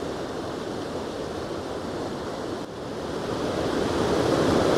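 A snowmelt-swollen mountain creek rushing fast over rocks and boulders in flood, a steady noise of churning water that grows louder about three seconds in.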